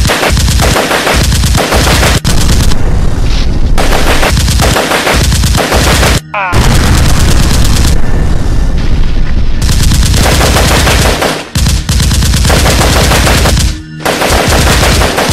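Rapid automatic gunfire sound effects in long, loud bursts, broken by short pauses about six, eleven and fourteen seconds in.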